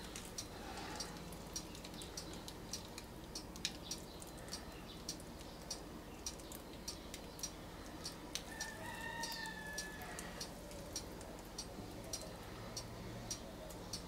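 Light ticking, about two ticks a second, with one long bird call about eight seconds in.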